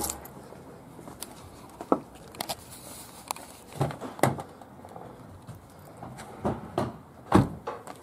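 A car door and keys being handled: a few light clicks and knocks, then a heavier thump near the end as the door is shut.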